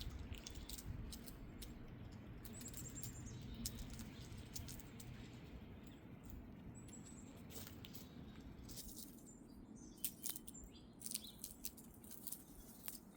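Squirrels cracking and chewing seeds and nuts: scattered sharp clicks, thicker in the second half, over a low steady wind rumble, with a few short, faint high bird chirps.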